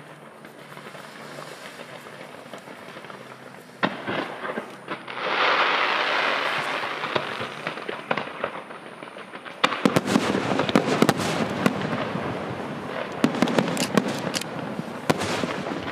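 Fireworks display: a single sharp bang about four seconds in, a loud rushing hiss, then from about ten seconds a dense barrage of rapid bangs and crackles.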